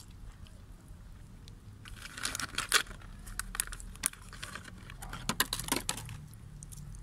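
A plastic food packet crinkling as it is handled, in two spells of crackles about two and five seconds in.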